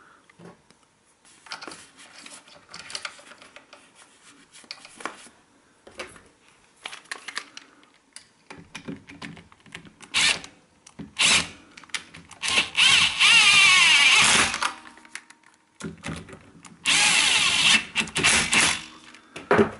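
Power drill with a socket extension spinning down the mounting bolts of a lawnmower ignition coil: two short blips about ten seconds in, then a run of about two seconds, and another run of over a second near the end. Soft handling clicks and knocks come before.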